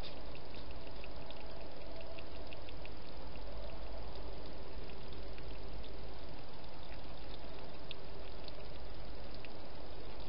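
Hedgehog feeding with its head in a dish, making many small quick clicks and smacks at an uneven rate of a few per second, over a steady hiss.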